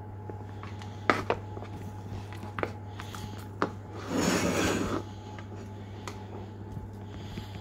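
A metal fork mashing and stirring butter and harissa in a small bowl, with several sharp clicks of the fork against the bowl and a louder scraping stretch about four seconds in. A steady low hum runs underneath.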